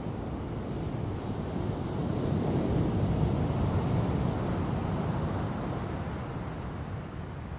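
Ocean surf breaking and rushing, with wind buffeting the microphone. It swells louder from about two seconds in and eases off after about five seconds.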